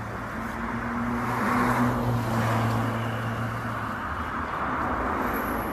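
Road traffic: a motor vehicle passing close by. Its engine hum and tyre noise swell about two seconds in and fade, and the engine hum stops about four seconds in.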